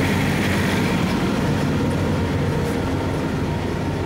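Wind blowing across a phone microphone, with a steady low rumble underneath.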